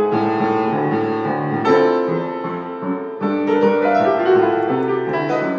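Grand piano played by two people at one keyboard, a jazz piece with a steady moving bass line under struck chords and melody notes.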